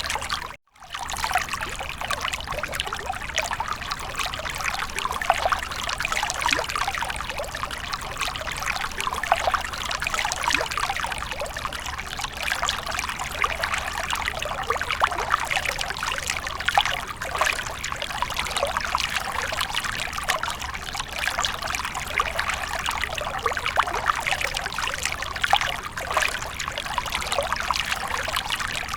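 Fountain water trickling and splashing steadily. The sound drops out for a split second just after the start.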